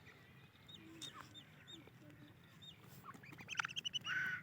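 Female francolin calling: a few short, high, hooked notes, then a quickening run of notes about three seconds in that ends in a louder call.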